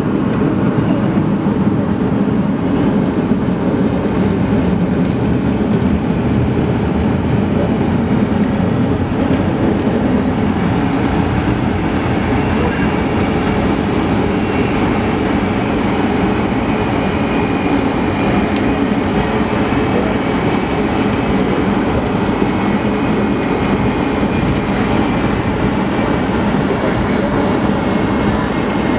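Steady rumble in the cabin of a Boeing 757 taxiing: the engines at idle and the aircraft rolling along the taxiway.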